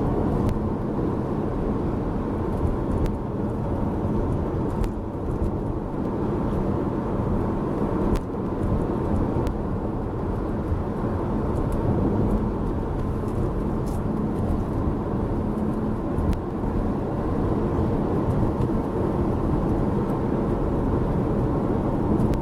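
Car driving at speed, heard from inside the cabin: a steady rumble of road and engine noise.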